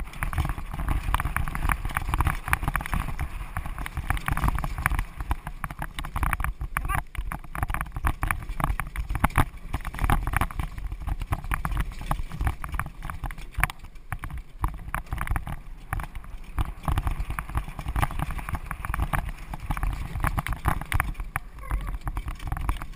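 A horse pulling a driving carriage over grass and dirt: a continuous clatter of hooves, wheels and harness fittings over a steady low rumble.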